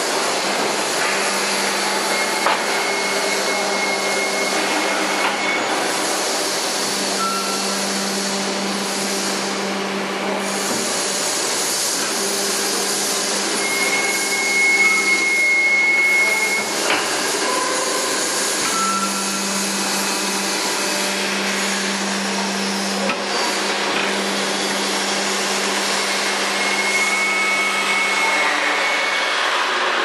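Machinery running steadily with a low hum and a constant hiss. Three long high squeals, each a second or two, come about two, fourteen and twenty-seven seconds in, with a few shorter squeals and occasional sharp knocks in between.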